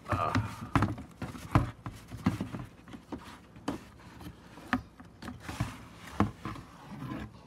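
Bubble wrap rustling and crinkling as a hand digs through a cardboard box, with irregular knocks and scrapes against the cardboard.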